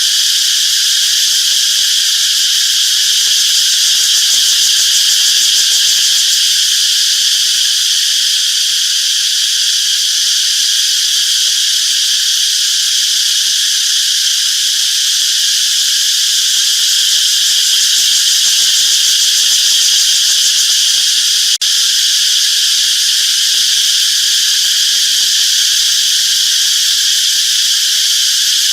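Cicadas singing in a loud, steady, continuous chorus of high buzzing, broken once by a brief dropout about two-thirds of the way through.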